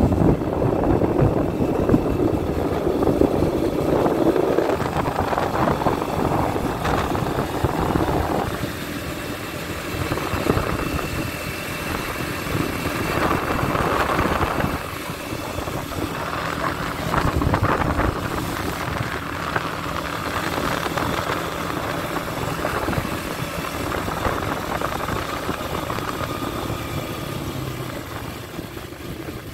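Four-wheeler (ATV) engine running while being ridden along a road. The loudness rises and falls throughout.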